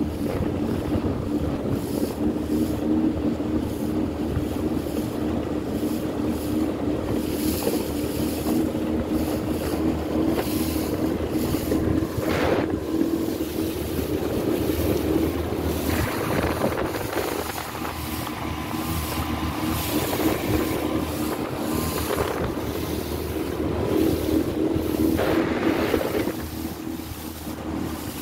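A boat's engine running at a steady pitch as the boat moves across open water, with wind buffeting the microphone in gusts.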